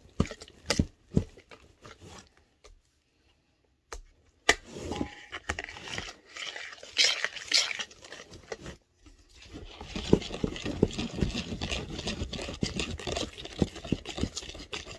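Hand mixer beating mashed sweet potato pie filling in an aluminium pan: the beaters tap and scrape against the side of the pan in quick irregular clicks. There are short pauses, and the clatter is densest in the last few seconds.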